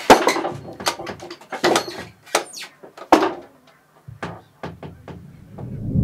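Windmill's wooden drive machinery creaking and knocking as the mill turns: a run of irregular, loud wooden knocks and creaks around the upright shaft and gearing. A low whoosh swells near the end.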